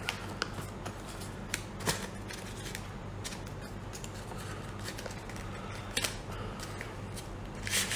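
A small cardboard box handled and opened by hand: scattered light taps and rustles of card, over a steady low hum.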